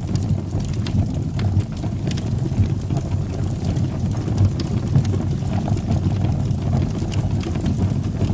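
Fire burning in a fireplace: a steady low roar of the flames with frequent small crackles and pops scattered throughout.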